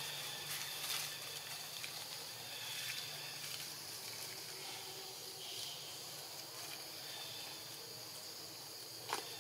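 Steady high insect chorus, an even buzzing hiss, with a few soft rustles and taps in leaf litter, the clearest one near the end.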